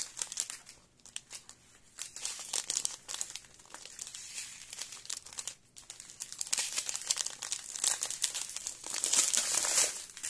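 Small plastic bags of diamond-painting drills crinkling as they are handled and turned over: a dense, irregular crackle that grows louder near the end.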